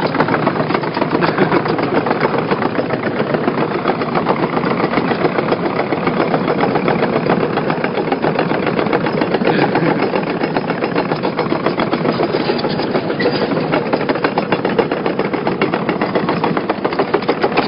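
Tracked excavator's diesel engine running steadily at close range, with a dense, fast rattle over it.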